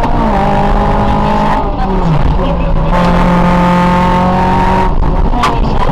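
Honda Civic rally car engine at high revs under hard throttle, heard from inside the cabin. The note dips and climbs back about two seconds in and again at the end, and there is one sharp crack about five and a half seconds in.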